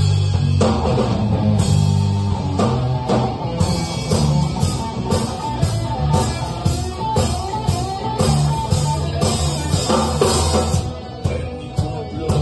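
A blues-rock trio playing live: electric guitar over electric bass and a drum kit keeping a steady beat.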